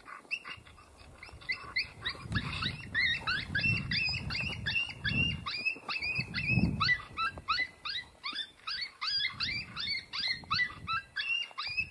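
An electronic predator caller playing a rapid, evenly spaced string of short, high, falling canine yips, about four or five a second, with a low rumble underneath.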